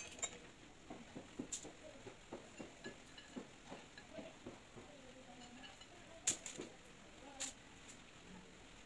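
Kitchenware handled while cooking: faint scattered taps with a few sharp clicks.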